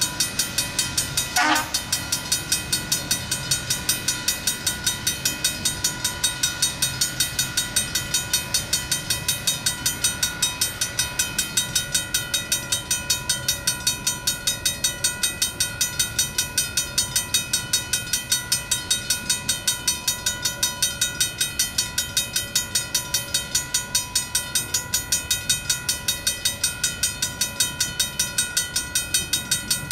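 Railroad crossing bell, 1960s equipment original to the crossing, ringing steadily with rapid, even strokes while the crossing is active.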